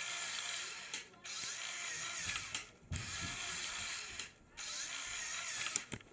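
Lego Power Functions medium motor whirring through its plastic gear train as it drives the model's two doors, running in four short spells with brief stops between them.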